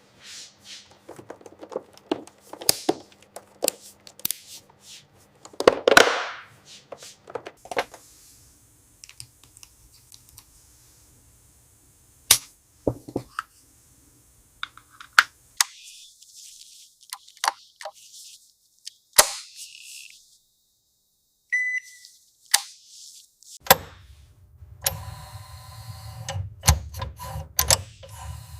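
Car-assembly workshop noises: a run of sharp metallic clicks and knocks from tools and fittings, with a high hiss through the middle and a short beep. A low steady machine hum starts near the end.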